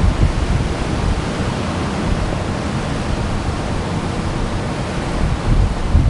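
Ocean surf washing in on a beach, a steady rushing noise, with a brief low thump on the microphone at the very start.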